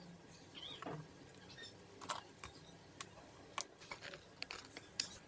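Scattered light clicks and taps of small hand tools (a tape measure, a marker and a wooden strip) being handled and set down on a wooden work board, with a short squeak about a second in.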